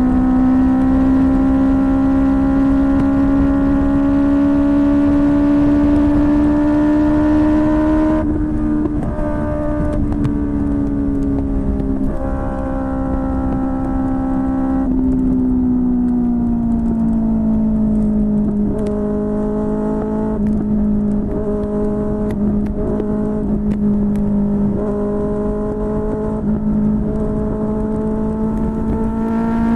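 QJMotor SRK600 inline-four engine through a Yoshimura R11 exhaust, ridden at steady revs that climb slightly. About eight seconds in the throttle eases off and the note drops. It settles lower for a while, then rises again near the end.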